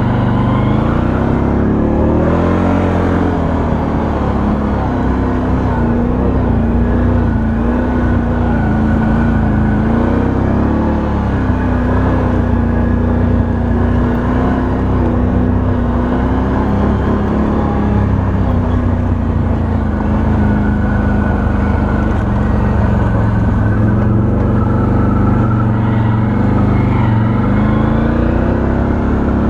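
Can-Am Outlander 1000 XT-P ATV's V-twin engine running while riding a dirt trail. Its pitch rises and falls with the throttle, climbing in the first few seconds and again near the end.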